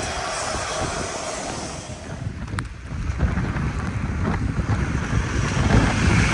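Typhoon wind gusting across the microphone, a low buffeting rumble that eases briefly about two seconds in and then builds again.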